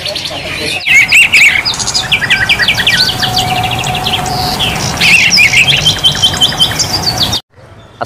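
Caged songbirds chirping and singing: fast runs of repeated high chirps and whistles from more than one bird. The song gets louder after an abrupt cut about a second in, and stops suddenly near the end.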